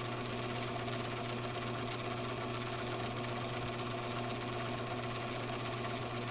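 Metal lathe running steadily under power, a constant even machine hum and whir with no change in speed, as it spins aluminium stock up against a centre drill held in the tailstock.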